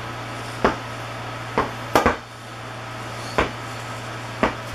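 A large inflatable ball being bounced and batted by hand, giving six sharp thumps at uneven spacing, two in quick succession about two seconds in, over a steady low hum.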